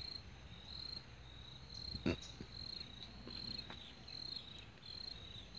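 A cricket chirping steadily, short high pulses about twice a second. A single sharp click comes about two seconds in.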